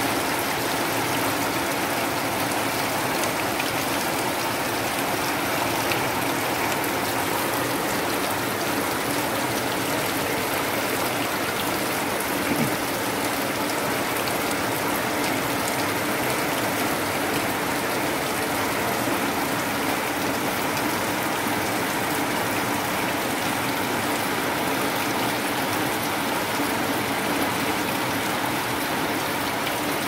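Rain falling onto standing water, a steady hiss of many drops splashing on the surface.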